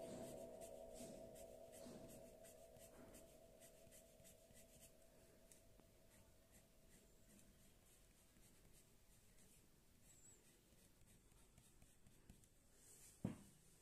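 Faint scratching of an orange coloured pencil shading on paper in quick repeated strokes, with a single knock near the end.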